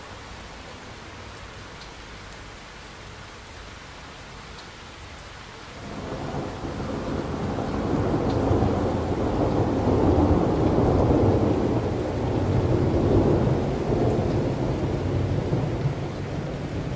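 Recorded thunderstorm: a steady hiss of rain, then a long roll of thunder that builds from about six seconds in, rumbles for about ten seconds and cuts off suddenly.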